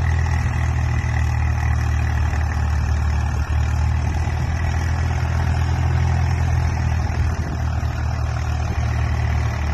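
Swaraj 744 tractor's three-cylinder diesel engine running steadily under heavy load, pulling a fully loaded soil trolley hard enough that the front wheels lift off the ground.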